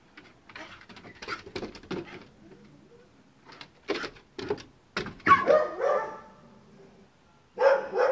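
A dog barking in play: a quick run of loud barks about five seconds in and another just before the end, with scattered quick knocks of paws running on wooden deck boards before them.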